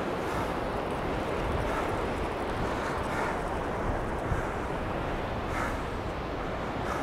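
Wind buffeting the microphone on an open, windy beach: a steady rumble that rises and falls in gusts, with a hiss over it.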